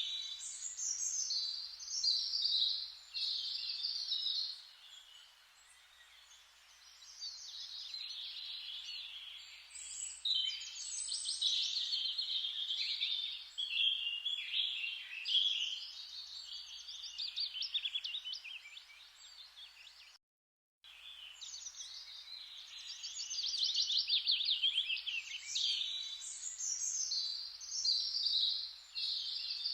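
Forest birdsong: several songbirds chirping and trilling over one another above a soft steady hiss. The sound cuts out completely for about half a second around two-thirds of the way through, then resumes.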